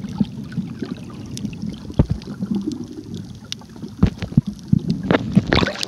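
Muffled sound of water picked up by a camera held underwater: a steady low rumble with scattered small clicks and knocks, and a cluster of louder knocks and splashes near the end.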